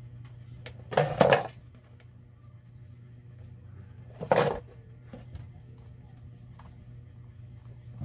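Small hard tools and parts clattering on a wooden workbench while the drill is being worked on: a quick cluster of knocks about a second in and another just past four seconds, with light ticks between, over a steady low hum.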